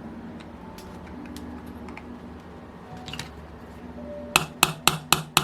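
Small steel tools clinking and tapping on metal as a punch is fitted to drive a part out of a model glow engine. It is mostly quiet with a few faint clicks, then about four seconds in comes a quick run of sharp metallic clicks, several a second.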